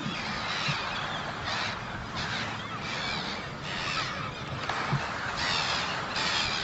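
A flock of gulls calling, many cries overlapping, coming about every half second to second over a steady waterside background.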